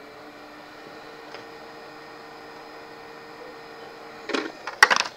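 Steady electrical hum on a repair bench, then a short clatter of sharp clicks and knocks about four seconds in as tools are handled over the laptop board.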